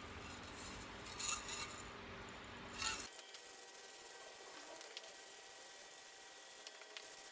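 Aerosol spray paint can: the mixing ball rattles twice as the can is shaken. About three seconds in, a faint steady hiss of paint being sprayed takes over.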